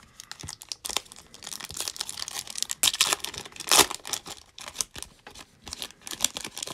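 Foil wrapper of a trading-card pack being torn open and crinkled by hand: a dense crackle building over the first few seconds, the loudest rip near four seconds in, then scattered crinkles as the wrapper is pulled off the cards.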